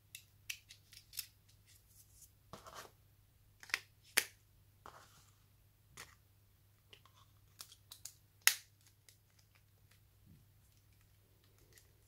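Small plastic clicks and scrapes from a Nokia 3220 being handled as its SIM card is fitted and its clip-on cover is pressed on and snapped into place. The clicks come irregularly, the sharpest about four and about eight and a half seconds in.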